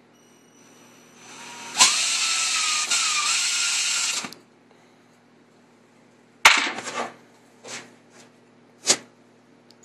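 Cordless drill driving a screw into a wine bottle's cork, whirring for about two and a half seconds, its pitch rising as it spins up. A couple of seconds later a sharp knock is followed by a few lighter knocks and clicks.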